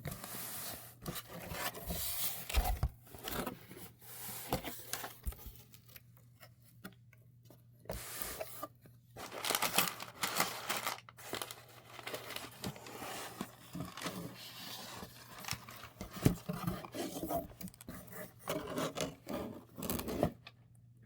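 Keyboard packaging being handled: rustling, rubbing and tearing of paper and plastic in irregular bursts, with short pauses.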